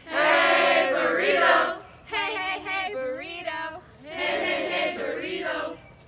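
A group of teenagers chant-singing a camp song in unison, some shouting through cupped hands, in three loud phrases of about two seconds each with short breaks between them.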